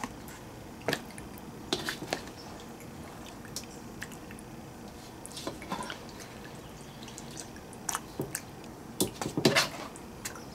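Serving spoon scooping rigatoni in thick meat sauce from a skillet into a plastic meal-prep container: scattered soft knocks and scrapes with wet squelches and plops of food. The loudest cluster comes near the end.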